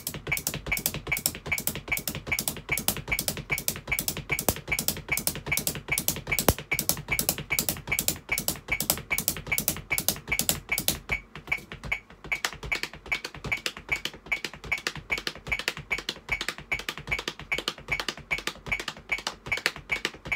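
Red bundle sticks (rods) tapping a Gretsch practice pad in an even drill pattern of about three strokes a second, as part of a samba-kick style hand-and-foot exercise. The heavier, lower part of the strokes drops away about eleven seconds in, leaving lighter taps.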